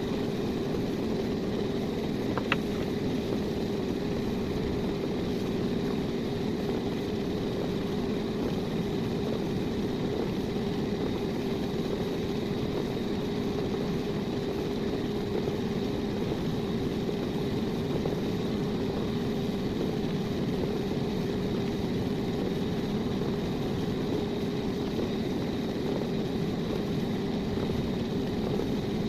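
A power tool's motor running steadily without change, with one sharp click about two and a half seconds in.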